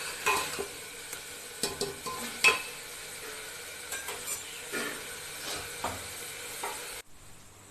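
Onion-spice masala frying in oil in a pan, a steady sizzle, with a spoon stirring and scraping the pan in irregular strokes. This is the masala being fried until the oil separates. The sizzle cuts off suddenly about seven seconds in.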